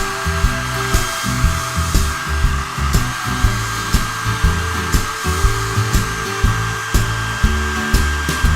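Hair dryer blowing steadily, a constant rushing hiss with a thin high whine, drying wet hair.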